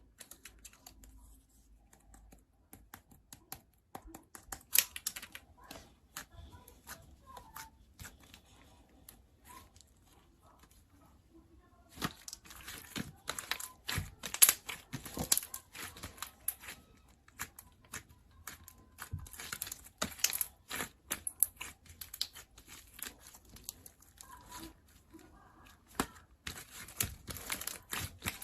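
Semi-clear slime being squished, poked and stretched by hand, making dense crackling clicks and pops. The crackling is sparse at first and comes in louder, busier stretches later on.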